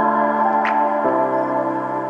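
Background music: soft ambient music of sustained chords that change about a second in, with a short bright accent just past a quarter of the way through.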